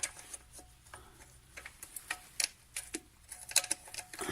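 Scattered light metallic clicks and taps as two 10 mm bolts and a wrench are worked on the throttle cable bracket in a VAZ 2114 engine bay.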